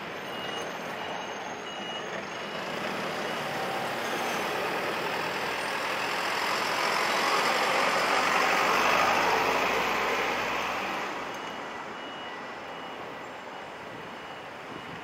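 Road traffic: a car and a box truck driving past, their tyre and engine noise swelling to its loudest about eight to nine seconds in and then fading. A short high beep repeats at an even pace near the start and again from about twelve seconds in.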